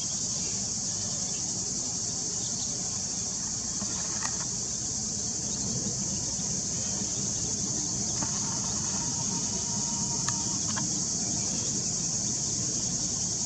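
Steady, high-pitched insect chorus that does not let up, with a low steady rumble underneath.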